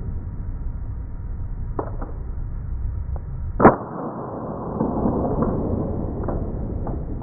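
A single sharp pop from a CO2 airsoft pistol firing, about halfway through, with a few fainter clicks before and after, over a steady low rumble.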